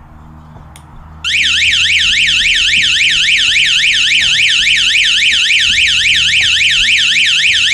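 A small 12-volt electronic alarm siren, wired by hand to its power supply, starts sounding about a second in after a faint click of the wire contact. It gives a loud, continuous warble that sweeps rapidly up and down in pitch several times a second.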